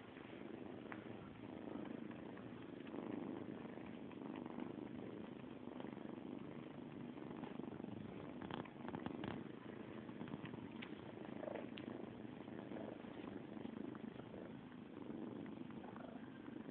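Cats purring steadily while a litter of kittens nurses on their mother. There are a few soft clicks about halfway through.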